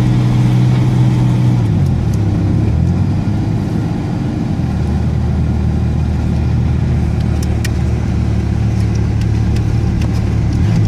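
Ford Ranger pickup's engine held at steady revs, dropping about two seconds in to a lower steady note, then starting to rev up again at the very end.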